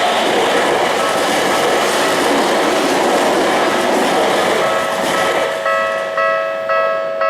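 Y500 series electric train passing over a level crossing, its loud running noise fading after about five seconds. As it fades, the crossing's electronic warning bell becomes clear, ringing about twice a second.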